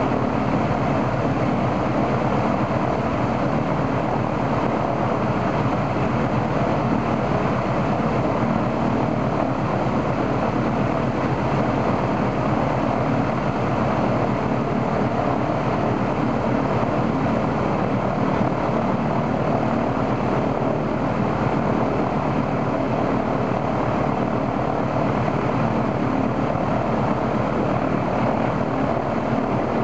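Ilyushin Il-14's right engine, a Shvetsov ASh-82T 14-cylinder radial, running at a steady speed with its propeller turning, in a ground run-up to test it after its oil cooler was replaced.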